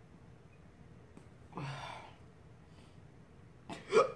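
A woman coughing lightly into her hand twice: a breathy cough about a second and a half in, then a shorter, louder voiced one near the end.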